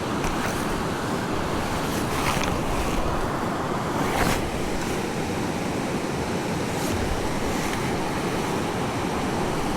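Steady rushing of river water, with a few faint clicks about two and four seconds in.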